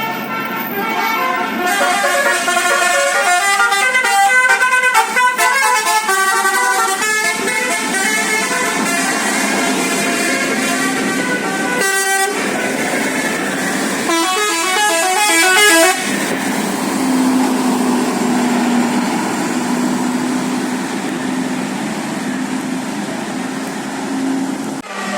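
Bus 'telolet' Basuri musical air horn playing quick melodic tunes of stepping notes, in two bursts, followed by a steady lower drone.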